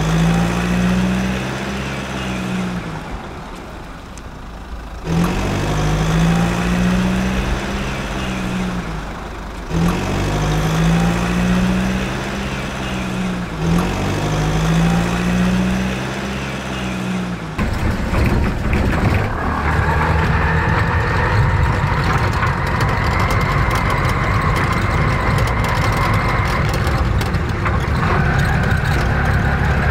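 Heavy vehicle engine sound, rising and falling in pitch four times in near-identical swells, then running steadily from a little past halfway with a higher steady tone over it.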